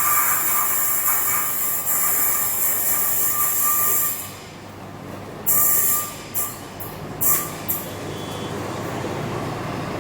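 Train standing at a station platform: a steady hiss with a faint whine cuts out about four seconds in, followed by a handful of short, sharp hisses.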